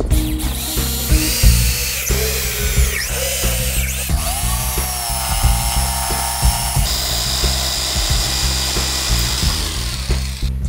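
A power tool whining at high speed, its pitch dipping and shifting several times, then stopping shortly before the end, over background music with a steady bass line.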